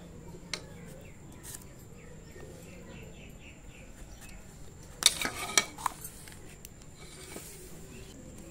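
A curved knife paring the skin off a green papaya, with quiet scraping and cutting, and a short run of sharp clicks and knocks about five seconds in that are the loudest sounds.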